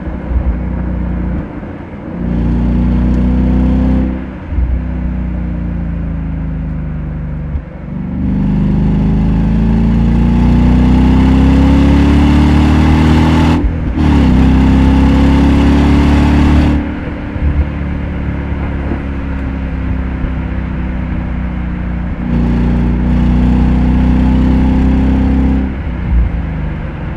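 Ford Mustang GT's V8 engine and exhaust pulling hard through the gears in several bursts. Its pitch climbs steadily and drops at each gear change, about a third of the way in and again around halfway. Between the pulls are quieter stretches of the engine running off the throttle.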